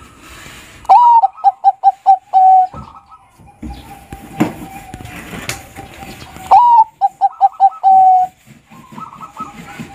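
Bangkok-strain zebra dove (perkutut) singing its cooing song twice. Each phrase is a rising first note, then a quick run of short coos and a long held final note. A couple of sharp knocks fall between the two songs.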